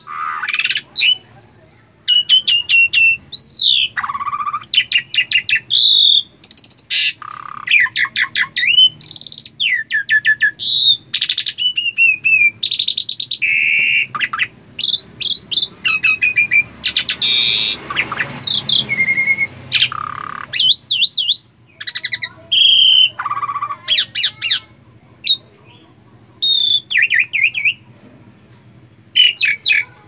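Asian pied starling (jalak suren) chattering nonstop in a loud, varied run of whistles, rising and falling slurs, clicks and rapid trills, with short gaps about two-thirds through and near the end.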